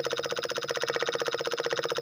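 Small electric motor (a reused dynamo) running a miniature water pump, with a rapid, even pulsing of about twenty beats a second.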